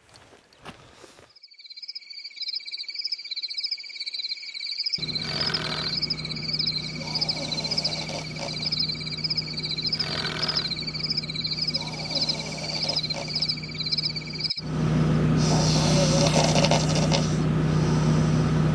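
A steady night chorus of fast, pulsing high trills over one held high note. From about five seconds in a low, steady generator hum runs underneath, and it jumps much louder after a sudden cut about fourteen seconds in.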